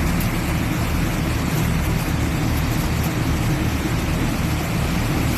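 1978 John Deere 4400 combine running steadily, a loud even mechanical drone with a low, regular pulsing.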